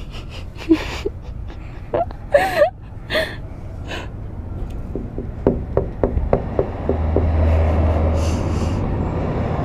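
Short gasps and stifled giggles close to the microphone, with scattered small clicks and knocks. A low steady rumble builds in the second half.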